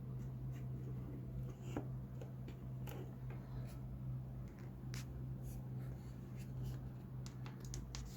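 Scattered faint clicks and taps of small handling over a steady low hum.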